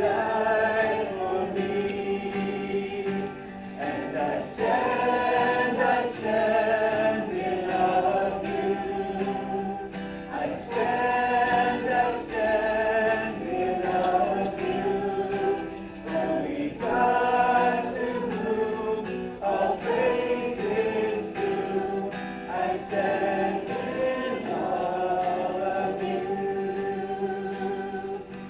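A congregation singing a worship song together, many voices in chorus.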